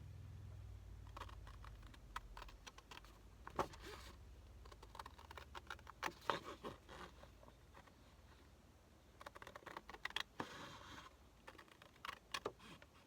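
Paper and cards being handled on a desk: irregular light taps, clicks and short rustles and scrapes.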